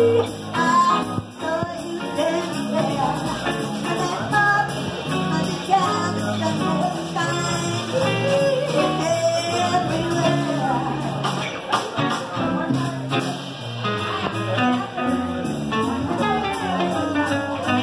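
Live band music: a woman singing lead over acoustic guitar and upright bass.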